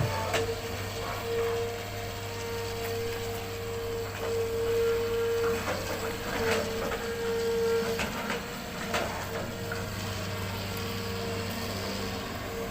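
Hitachi hydraulic excavator working: a steady engine hum under a whine that swells and fades several times, with scattered sharp knocks, loudest a little past the middle.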